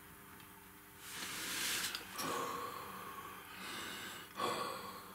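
A person huffing warm breath onto a freshly superglued plastic model part, several breaths starting about a second in. Breathing on it is meant to speed the superglue's cure, since superglue reacts to moisture in the air.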